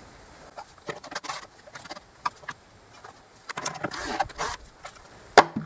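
Hand work on a stiff engine part as it is loosened: scattered clicks and knocks with short scraping stretches, ending in one sharp, loud click near the end.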